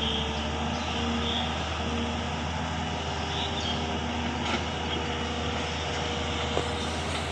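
Link-Belt Sumitomo LS-3400 long-reach excavator's diesel engine running steadily under load while the arm lifts a bucket of mud from the river, with a constant low hum and a light knock about four and a half seconds in.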